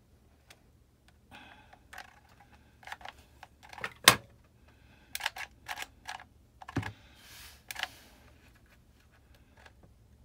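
Irregular clicks and taps from a mini hot glue gun, its trigger pumped and the gun knocking on paper over a tabletop, with a brief paper rustle. The loudest click comes about four seconds in. The glue stick is running too short to feed.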